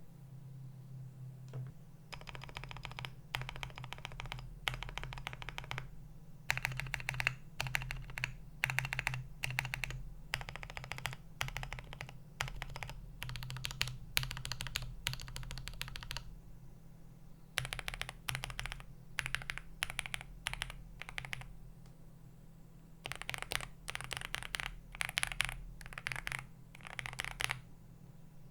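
Meletrix Zoom65 custom mechanical keyboard being typed on, with lubed JWK linear switches and doubleshot keycaps on a polycarbonate plate. The keystrokes come in fast runs of a second or two with short pauses between them.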